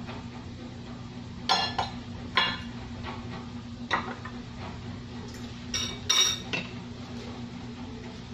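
Small glass bowls and a metal spoon clinking together: a handful of sharp, ringing clinks, in pairs and singly, over a steady low hum.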